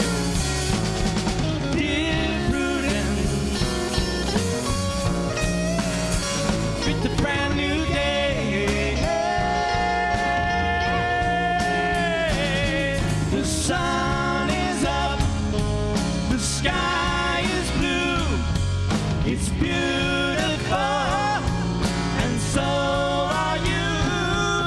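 Rock band playing live: electric guitars over bass and drums, with a long held guitar or vocal note near the middle.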